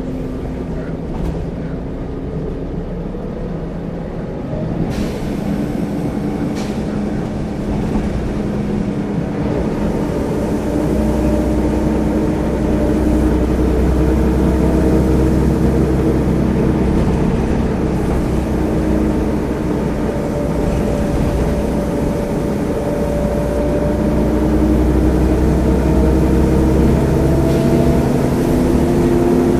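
Volvo B10B single-deck bus engine heard from inside the saloon, running under load as the bus drives along. It gets louder about five seconds in, and the engine note rises again near the end.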